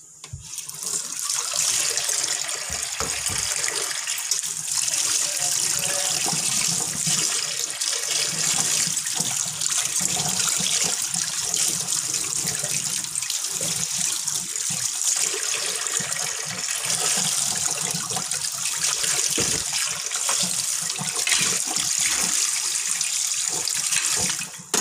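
Tap water running steadily in a steady stream. It builds up over the first second or two and is shut off suddenly near the end.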